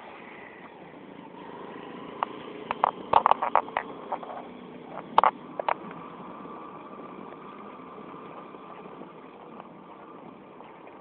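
Steady street and wind noise during a bicycle ride, with a motorcycle engine running alongside in the first seconds. Sharp clicks and rattles come in a quick cluster about three seconds in and again about five seconds in.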